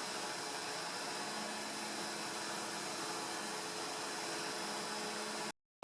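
CNC router running as it carves white oak with a tapered ball-nose bit: a steady whirring hiss with a thin high whine, cutting off suddenly near the end.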